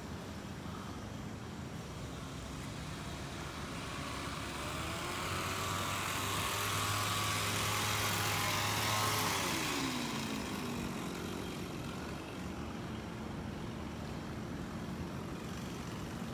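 A motor vehicle passing by: it grows louder over several seconds, then its engine note drops in pitch about nine seconds in as it goes past and fades away.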